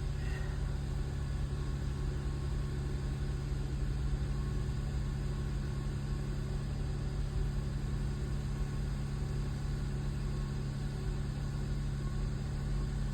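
Jeep Wrangler JL engine idling steadily, a low even hum and rumble.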